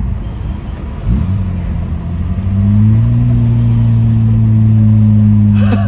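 Nissan GQ Patrol's TB42 straight-six petrol engine, heard from inside the cabin while driving. Its note rises briefly about a second in, then from about halfway it settles into a louder, steady drone.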